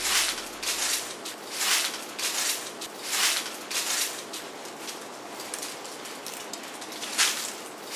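Repeated short bursts of hissing noise, roughly one a second, over a steady background hiss.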